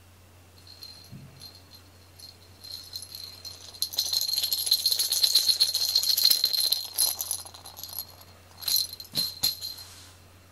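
A small jingle bell being shaken, a rapid high rattling jingle that swells to a peak in the middle and then comes in three short shakes near the end.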